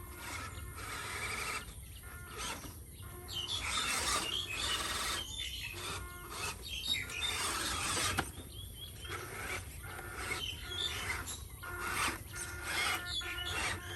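Small electric motors and gearboxes of RC off-road trucks whining and grinding in uneven bursts a second or two long, as the trucks drive and stop.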